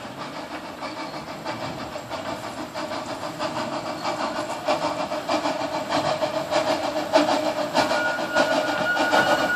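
Narrow gauge steam locomotive working hard uphill: rhythmic exhaust beats growing louder as it approaches. A thin steady high tone comes in near the end.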